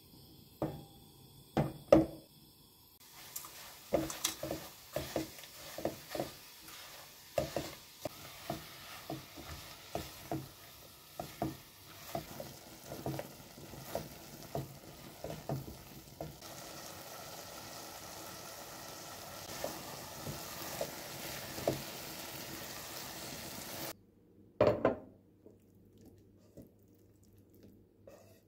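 Apple slices frying in butter and sugar in a nonstick pot, sizzling steadily while being stirred, with the utensil knocking against the pot about once or twice a second. The sizzle cuts off suddenly near the end, followed by a couple of knocks as the fruit is tipped out of the pot.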